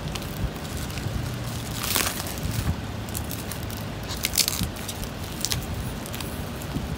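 Plastic wrap and packing paper being pulled and torn open by hand: crinkling and rustling, with louder rips about two seconds in and again after four seconds.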